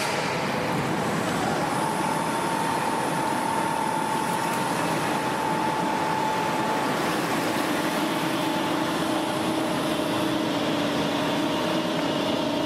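Helicopter underwater egress trainer being lowered into a pool: a steady mechanical rush from the overhead hoist, with a faint steady whine, and water churning as the cabin goes under.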